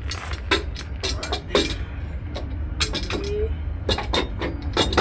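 Irregular light metallic clinks and knocks, about a dozen, from steel parts being handled, over a steady low rumble.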